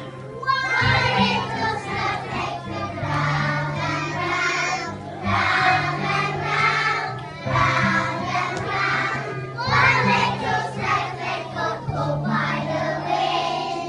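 Young children's choir singing a Christmas song in phrases over backing music with held bass notes.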